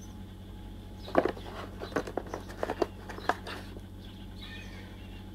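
Small hard clicks and light rattling as old paper capacitors are handled and dropped back among others in a box, a quick flurry of about a dozen ticks, over a steady low electrical hum.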